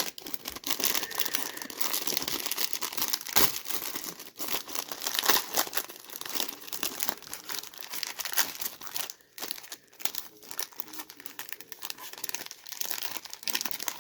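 Plastic wrapper of a baseball card rack pack crinkling and tearing as it is worked open by hand: an irregular, continuous run of crackles and rips, louder in places.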